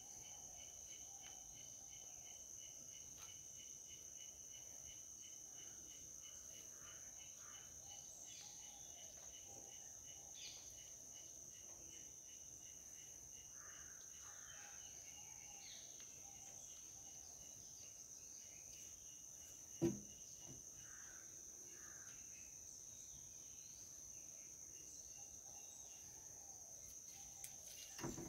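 Steady high-pitched insect drone with faint scattered bird chirps, broken by a single sharp knock about two-thirds of the way through.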